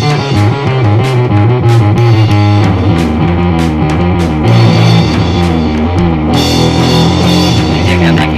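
Rock music with electric guitar, bass and a drum kit, playing steadily; the arrangement shifts about two and a half seconds in and again near the end.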